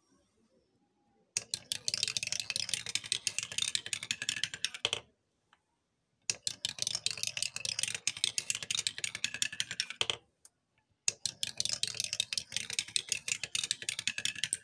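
Glass marbles rattling down a wooden spiral petal marble run, clicking rapidly as each marble drops from petal to petal. Three runs of about four seconds each, with short pauses between, one marble per run.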